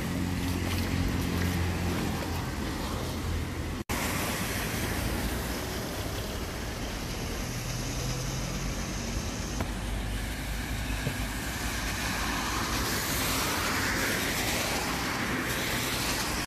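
Road traffic passing: steady engine and tyre noise from cars, with the sound cutting out for an instant about four seconds in and swelling as a vehicle goes by near the end.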